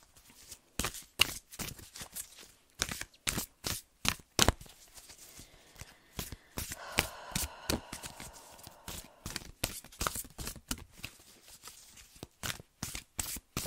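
A deck of oracle cards being shuffled by hand: an irregular run of soft slaps and riffling clicks, with a few sharper knocks among them.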